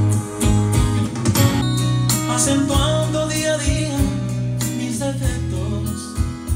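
A song with guitar, a strong bass line and a steady beat, played through the Alien Pro SP Q600, a small 30 W soundbar with a 30 W wireless subwoofer, and heard in the room.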